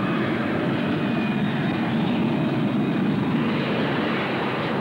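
Hawker P.1127's Pegasus vectored-thrust turbofan running as the jet hovers, a steady rushing jet noise that swells a little midway.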